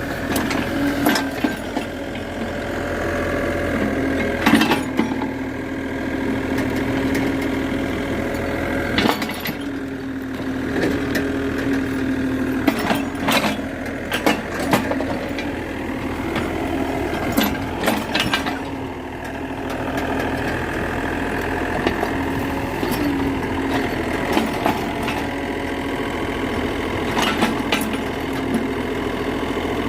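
Excavator's diesel engine running steadily, with repeated sharp knocks and cracks from the machine working.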